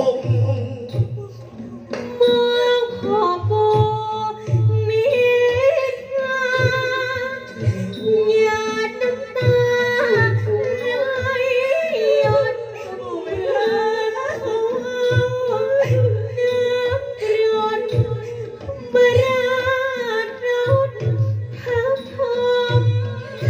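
Thai likay singing through a stage microphone: a voice holding long, wavering melodic lines over a band accompaniment, with a low drum beat recurring about every second and a half.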